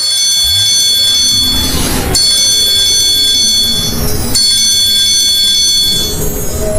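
A high, bright bell-like ringing tone sounding three times in a row, each about two seconds long and fading out after the third.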